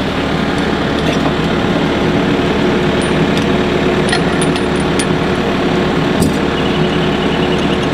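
An engine idling steadily, with a few short metallic clinks of a steel chain and shackle being worked against concrete mooring blocks.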